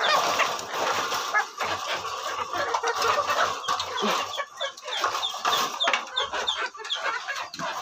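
Several caged laying hens clucking excitedly as they crowd round a bowl of feed, a busy run of short, repeated calls.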